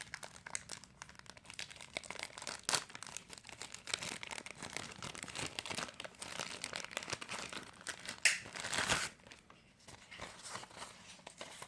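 Plastic packaging crinkling and crackling as a screen protector is taken out of its package, loudest about eight seconds in, then fading to light handling noise.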